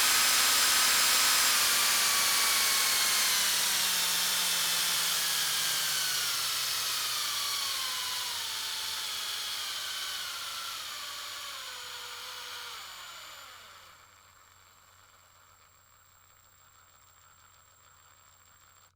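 Medium-sized power drill spinning down, its motor whine falling steadily in pitch and fading over about fourteen seconds, then dropping to a faint hiss.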